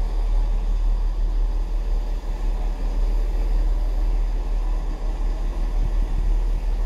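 Steady low rumble of railway platform background noise, with no distinct event standing out.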